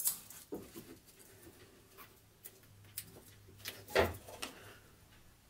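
Scattered light clicks and knocks of hands fitting a taped battery pack and its wires into a chainsaw's housing beside the motor, with the loudest knock about four seconds in.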